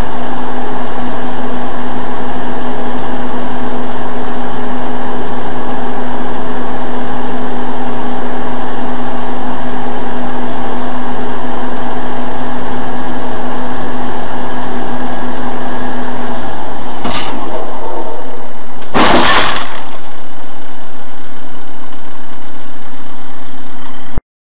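Heavily overloaded dashcam recording of a car's steady engine and cabin drone with a whine. A short knock comes about 17 seconds in, then a loud crash impact about 19 seconds in.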